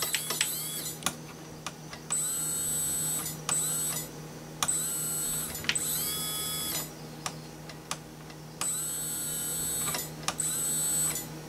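The RC truck's brushless motor and ESC are run from the radio in a series of short bursts, each about a second long. Each burst spins up with a rising whine and holds a steady high whine before cutting off. This is a function test of the newly swapped motor and ESC.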